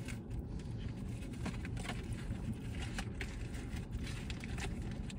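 Steady low rumble of a car idling, heard inside the cabin, with a few faint small clicks and rustles over it.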